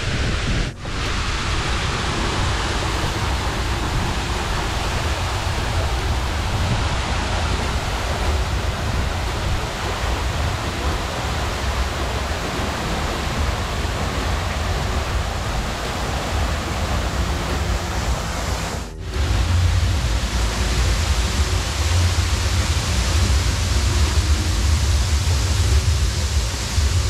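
Waterfall pouring into a rock plunge pool: a steady rush of falling water. The sound dips briefly about a second in and again around 19 seconds, and after the second dip it is louder, with a deeper rumble underneath.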